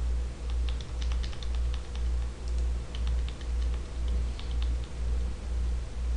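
Scattered light clicks of a computer mouse and keyboard, bunched in the first couple of seconds, over a low hum that throbs about twice a second.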